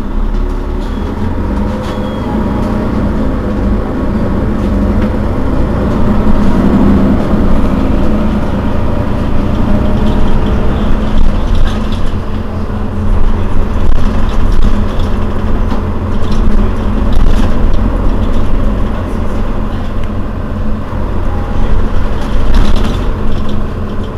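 Mercedes-Benz Citaro Facelift city bus idling at a standstill: a steady low engine hum. A few short clicks sound in the second half.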